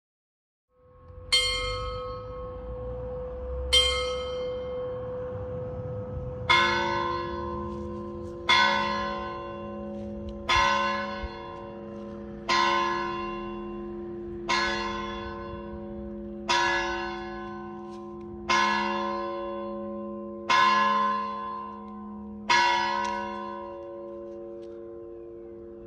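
Tower clock bells: two strokes on a higher bell, then a lower bell striking nine times, one stroke every two seconds. Each stroke rings on under the next. The count marks the hour, nine o'clock.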